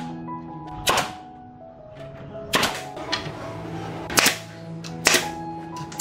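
Pneumatic nail gun firing nails into wooden boards: four sharp shots, irregularly spaced about one to one and a half seconds apart.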